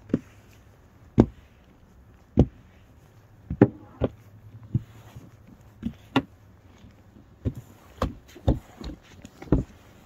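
Snow brush knocking and shoving packed snow off a car's windshield and hood: a string of dull thuds at uneven spacing, about one a second and quicker near the end.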